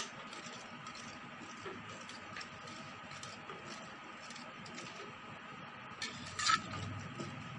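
Wire whisk stirring milk in a metal pot, its wires clicking lightly and irregularly against the pot, with a louder clack about six and a half seconds in.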